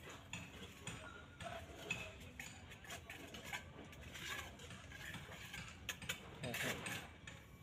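A steel trowel scraping over wet cement mortar on a concrete slab as it spreads and smooths it: faint scraping made of many short, irregular scrapes.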